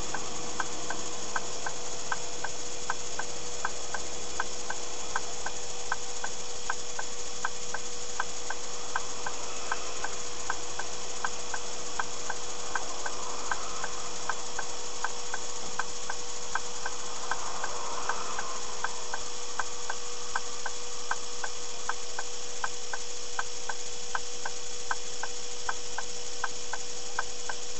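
A car's turn-signal indicator ticking evenly, about twice a second, inside a stationary car. Under it runs a steady electrical hum and hiss.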